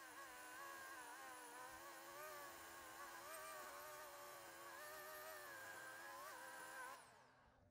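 Corded electric chainsaw running and cutting into a log, its motor whine wavering in pitch as the chain bites into the wood. It stops about seven seconds in, the whine falling away.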